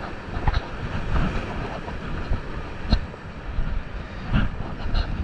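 Surf foaming and washing over shoreline rocks, with wind buffeting the microphone. A few sharp knocks stand out, the clearest about three seconds in.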